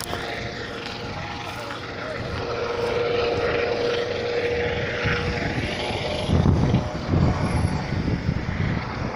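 Helicopter flying over: a steady rotor and engine drone with a held whine, growing louder over the first few seconds.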